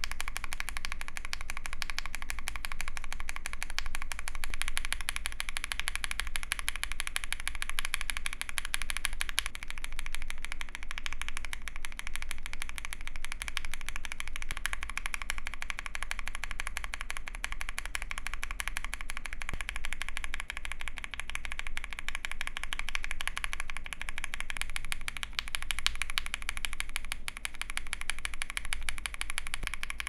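Continuous fast typing on a custom mechanical keyboard with a polycarbonate plate and GMK keycaps: a dense, steady stream of keystroke clacks. The switches are Lavenders at first, then Milky Top Yellows from about halfway through.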